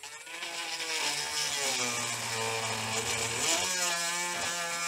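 Dremel rotary tool running at high speed with a buzzing whine, drilling into the plastic computer case to widen a screw hole. The pitch shifts a few times, most clearly about three-quarters of the way through.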